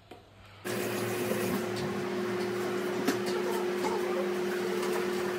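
A kitchen appliance motor running with a steady hum and whir, starting abruptly less than a second in. Faint clicks and clatter of kitchen work sit over it, with one sharper click about three seconds in.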